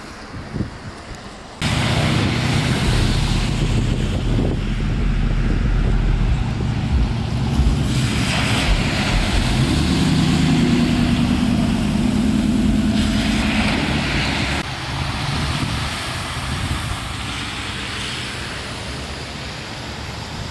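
Vehicles driving through a flooded street: engines running and tyres throwing up sheets of water, with two loud rushes of splashing as vehicles pass, the first about eight seconds in. After that, a steadier lower noise of wind and water.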